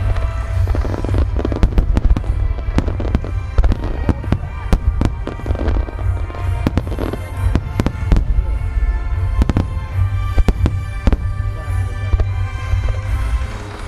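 A fireworks display: many shells bursting in quick succession, sharp bangs several a second over a continuous deep rumble. Music plays throughout.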